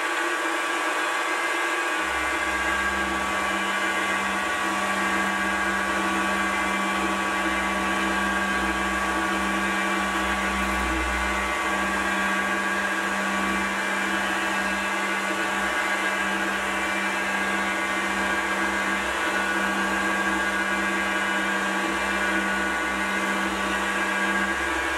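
Sieg X2.7L mini milling machine running with a steady motor whine while a quarter-inch end mill cuts along an aluminium block. A deeper hum joins about two seconds in and stops just before the end.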